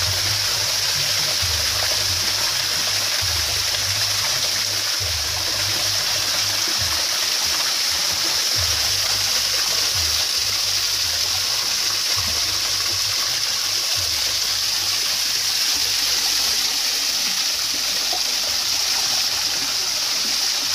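Steady rushing of water in a shallow stream, an even hiss with no break, with occasional low bumps underneath.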